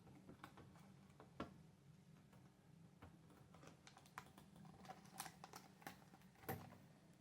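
Faint, scattered clicks and taps of fingers working a laptop's loose LCD panel and display cable, two of them sharper, about a second and a half in and near the end, over a steady low hum.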